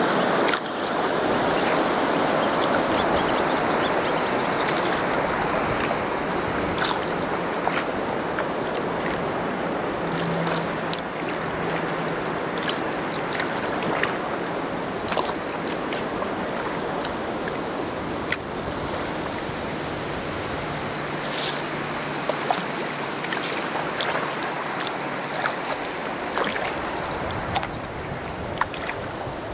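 Steady rush of flowing river water, loudest in the first few seconds and easing a little, with scattered small clicks over it.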